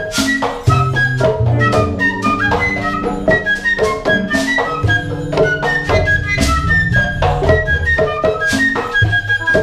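Live large ensemble playing: a flute carries a high melody over batá drums beating a dense rhythm and a low, sustained bass part, with other winds and strings.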